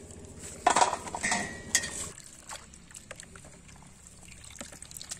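Water splashing and trickling as handfuls of raw jackfruit pieces are lifted and rinsed in a steel pot of water. The splashing is loudest for about a second and a half near the start, then thins to small drips and clicks.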